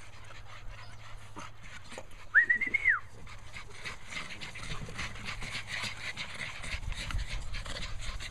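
American bully puppies panting, with one short, high whine about two and a half seconds in that rises, wavers and drops.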